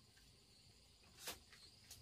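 Faint, steady high-pitched insect chirring, typical of crickets, with two short knocks: a louder one just past a second in and a sharper one near the end.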